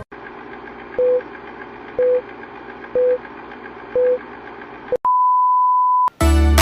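Countdown beep sound effect: four short beeps one second apart over a steady hiss, then one long, higher beep about five seconds in that lasts about a second and cuts off sharply.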